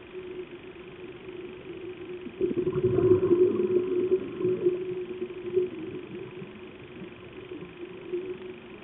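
Muffled underwater sound of a scuba dive with a steady low hum. About two and a half seconds in, a rumbling rush of a diver's exhaled regulator bubbles rises, then fades over a couple of seconds.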